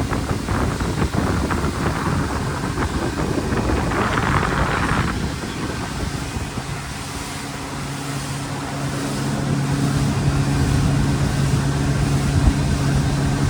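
Wind rumbling on the microphone, with a steady low engine hum setting in about seven seconds in.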